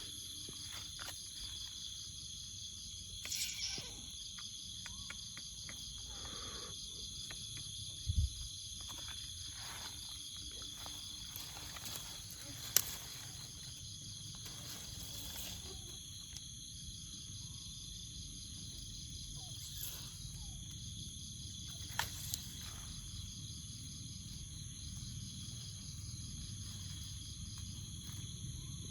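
A chorus of insects calling steadily in several high, unbroken tones, one of them a fast pulsing trill. Scattered light rustles and clicks and one brief low thump are heard, the sounds of moving through vegetation.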